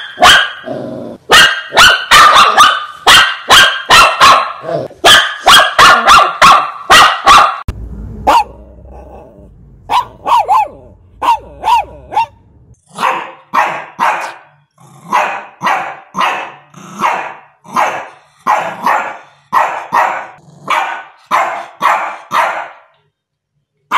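Shih tzu barking in a rapid string of sharp barks. About eight seconds in the barks mostly stop for several seconds while a low rumble is heard, then they resume at about two a second.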